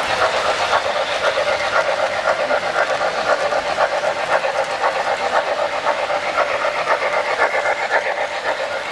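Three-rail O-scale model trains running on the track, led by a streamlined model steam locomotive, with a steady, fast, even rhythm.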